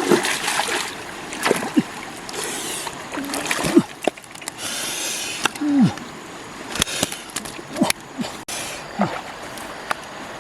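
Water splashing and sloshing, with many sharp slaps and a couple of longer gushing bursts of water.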